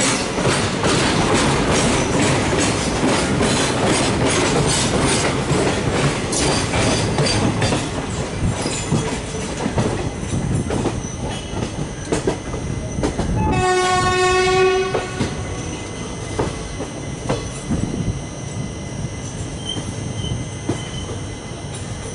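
Express passenger train running through with its wheels clattering rapidly over rail joints, then easing off. About 13 seconds in, one horn blast of about a second and a half from its WAP4 electric locomotive. After it the running noise is quieter, with a thin high squeal.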